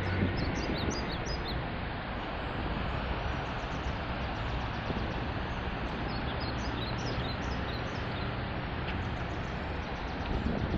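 Steady city traffic noise, with a few short bird chirps about half a second in and again around six to seven seconds in.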